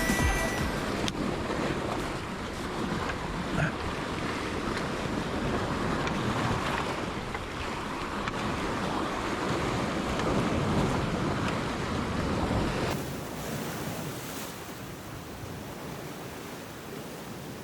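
Sea surf washing against the rocks, with wind buffeting the microphone. A little past two-thirds of the way through, the sound drops quieter.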